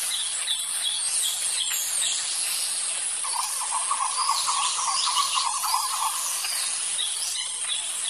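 Forest chorus of many birds chirping over a steady high insect hiss, with a fast run of lower, repeated chirps from about three to six seconds in.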